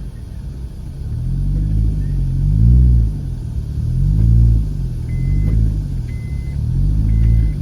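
Lowered Honda Jazz hatchback's engine revving up and dropping back again and again as the car is eased over rocks on a rough dirt track. Near the end a short high beep repeats about once a second.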